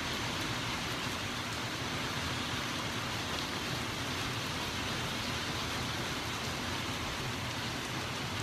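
Rain falling steadily in a thunderstorm, an even hiss.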